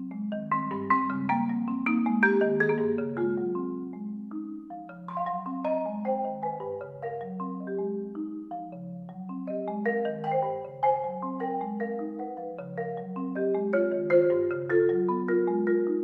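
Yamaha concert marimba played with four mallets: a continuous stream of overlapping notes, low notes ringing under quicker higher ones. The playing swells louder about two seconds in, eases off, then swells again near the end.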